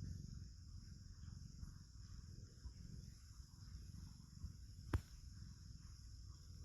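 A sleeping cat snoring softly, a low, rough rattle of breathing. A single sharp click sounds about five seconds in.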